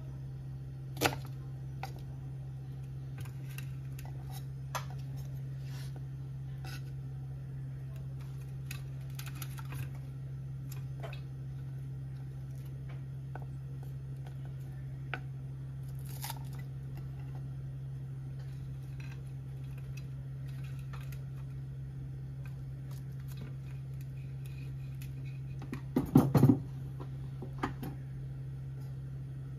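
Sparse sharp knocks of a kitchen knife on a wooden chopping board as shallots are cut, one louder about a second in and a louder cluster of knocks near the end, over a steady low hum.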